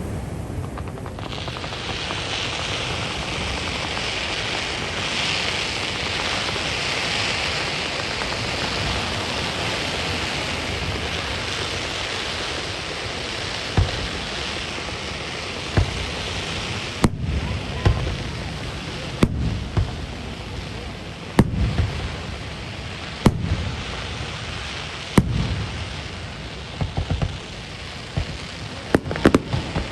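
Aerial fireworks bursting. The first half is a steady hiss over a low rumble. From about halfway, sharp bangs come roughly every two seconds, with a quick cluster of them near the end.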